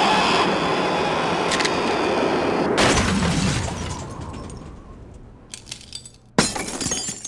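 A long loud crash with breaking and shattering, struck hard again about three seconds in, then fading out with a few small clinks. Near the end a second sudden loud crash cuts off abruptly.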